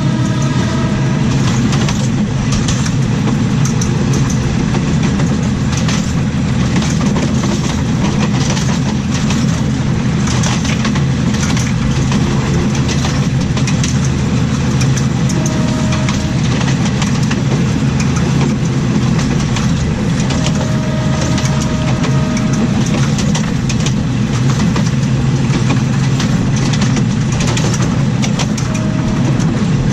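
Underfloor running gear of a diesel railcar at speed: steel wheels rolling on the rails with irregular clicks and knocks over the track, over the steady drone of the underfloor diesel engine.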